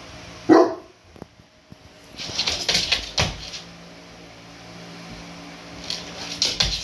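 Saint Bernard giving one short, deep bark about half a second in, warning off another dog, followed by two stretches of scuffling and rustling as the dogs shift about.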